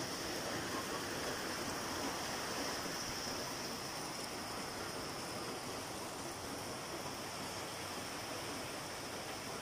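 Typhoon wind and heavy rain: a steady rushing hiss that holds level throughout, with no distinct gusts or impacts standing out.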